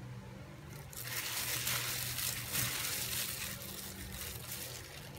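A plastic bag worn as a glove crinkles and rustles while the hand squeezes and scoops wet minced shrimp paste in a bowl. It starts about a second in and eases off near the end.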